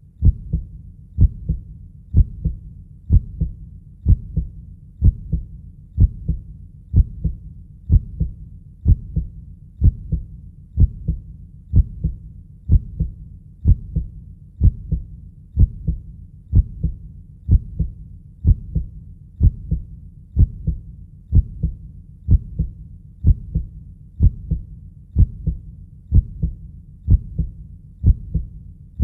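Heartbeat sound: a steady, even lub-dub of low thuds, about one beat a second.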